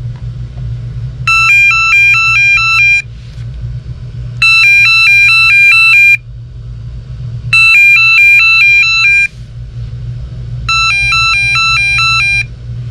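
Vtech CS5113 5.8 GHz cordless handset ringing in find-handset paging mode. Four loud bursts of a fast electronic warble, each about a second and a half long and about three seconds apart.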